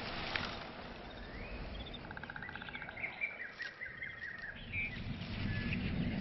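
Small birds chirping over a soft, steady rustling haze, with a rapid trill and a few short rising calls in the middle.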